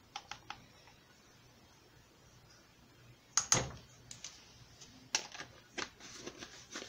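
Light clicks and taps of kitchen utensils as a measuring spoon and spice container are handled, with one sharp knock about three and a half seconds in and a run of quicker clicks near the end.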